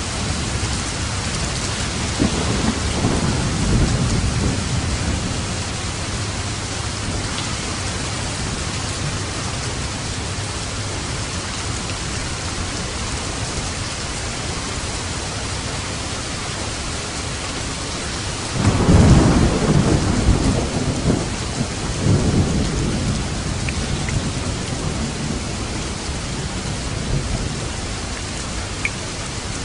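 Steady rain falling in a thunderstorm. A low roll of thunder rumbles a few seconds in, and a louder thunderclap breaks about two-thirds of the way through, rolling on in waves for several seconds.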